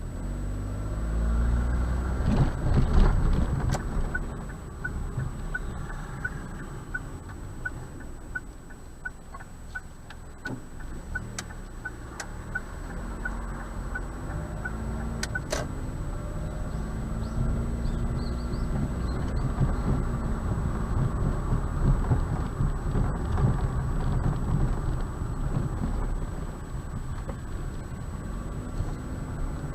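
Car engine and road noise heard from inside the cabin on a dashcam, with the engine note rising as the car picks up speed several times. A faint regular ticking, about two a second, runs for around ten seconds in the first half, and a thin steady high whine from the recorder sits underneath.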